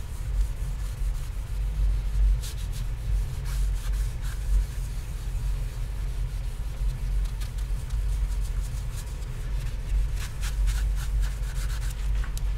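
Hand rubbing strokes on a copper printmaking plate, coming in irregular runs, with a steady low hum underneath.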